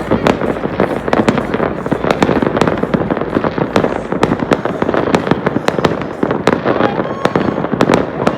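Fireworks going off in a dense, continuous barrage: many sharp bangs and crackles a second, with no pause.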